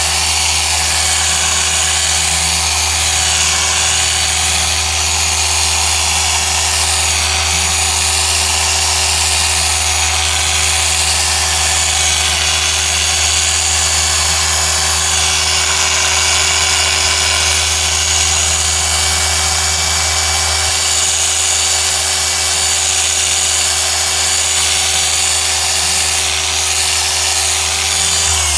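Rupes mini polisher running steadily with a small foam pad, buffing a plastic rear light lens with compound: a steady high motor whine over a low hum. Right at the end the pitch starts sliding down as the tool winds down.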